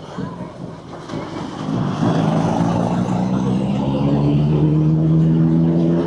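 Motorcycle engine pulling away and accelerating, its pitch rising slowly over several seconds, after a first second or so of low traffic rumble.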